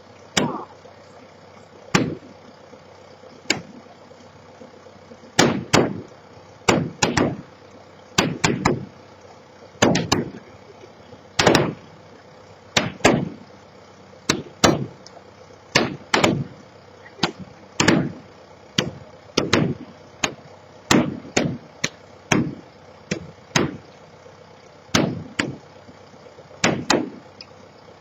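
Heavy blows struck repeatedly in the demolition of a farm silo, about thirty in all, irregular and often in quick pairs, each ringing on briefly, over a steady engine hum.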